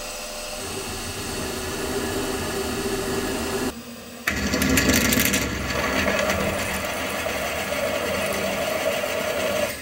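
Milling machine spindle running while a drill bit cuts into steel mounting brackets, boring the 17/64-inch tap-drill holes for M8 threads. About four seconds in the sound drops off briefly, then the drilling resumes with a scratchy hiss of cutting that settles back into a steady run.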